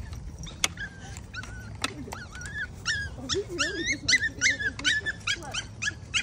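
Yorkipoo puppy on a leash whining in a string of short, high-pitched yelps, coming about three a second and getting louder from about three seconds in. The puppy is protesting being pulled along on the leash.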